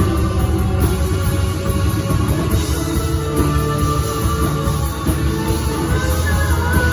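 Live worship band playing a slow, steady song with guitars and keyboard over a deep sustained bass.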